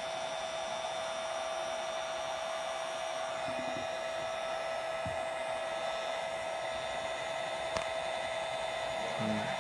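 Wagner HT3500 heat gun running steadily, shrinking a sleeve label onto a bottle: an even blowing rush with a constant high hum. A few faint knocks and one sharp click near the end.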